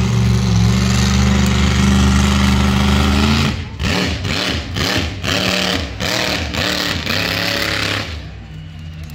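Monster truck engine under heavy throttle: a steady loud drone for about three and a half seconds, then rapid revving up and down in quick pulses as the truck works the track, falling away about a second before the end.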